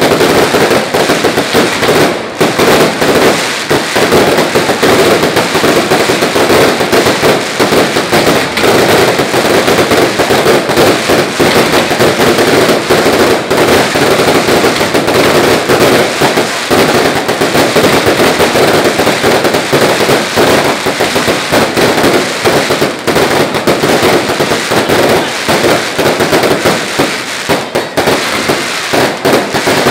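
A loud, unbroken barrage of fireworks and firecrackers: rapid cracks and bangs packed so close they run together with no pause.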